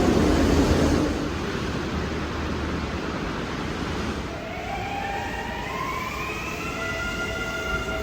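Electric train's inverter and traction-motor whine rising in pitch as the train accelerates, several tones climbing together from about four seconds in, over the rumble of the train running.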